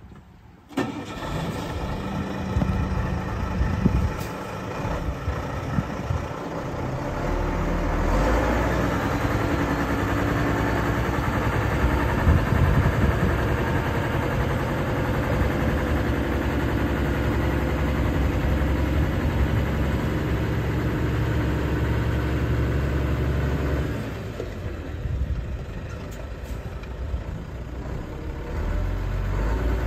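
Mack EM7-300 diesel engine of a 1993 Mack RD690S tri-axle dump truck running. It comes in about a second in, gets louder and higher around eight seconds, drops back about 24 seconds in, then rises again near the end as the truck moves under power.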